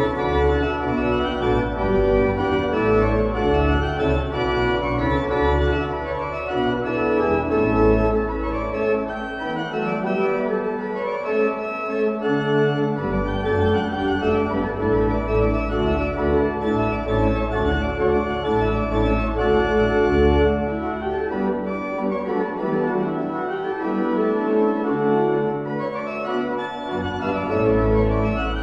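Pipe organ playing held chords over a deep bass line; the bass drops out for a few seconds near the middle, then comes back.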